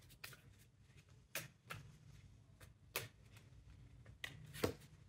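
A deck of oracle cards being shuffled in the hands: a handful of soft, separate card flicks and taps, the loudest about four and a half seconds in.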